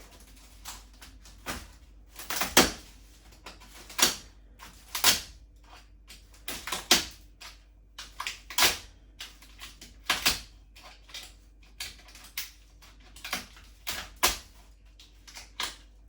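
Packaging being worked off a new washing machine: irregular short crinkles, scrapes and rustles of plastic wrap and polystyrene, about one every second, some of them loud.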